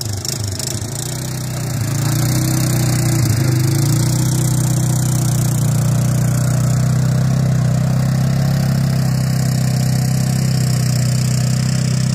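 ATV engine running with a low, even drone that gets louder about two seconds in and then holds steady.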